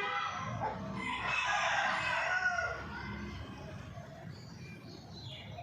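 Rooster crowing: one long cock-a-doodle-doo lasting about two and a half seconds, starting about half a second in.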